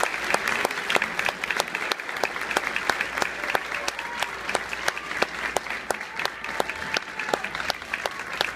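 Audience applauding: many hands clapping steadily, with sharp individual claps close by standing out.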